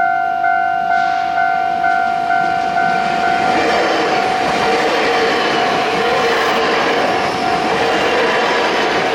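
Railway level-crossing warning bell dinging about twice a second. From about three and a half seconds in, a train passing over the crossing rises in loudness and covers the bell.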